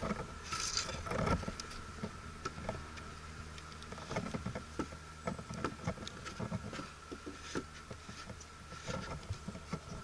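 Scattered light knocks, taps and scrapes as wooden beehive boxes, lids and frames are handled, over a faint steady hum.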